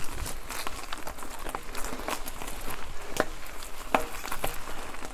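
Mountain bike riding over a rough forest trail: irregular clicks, knocks and rattles from the bike jolting over the ground, over a low wind rumble on the camera's microphone.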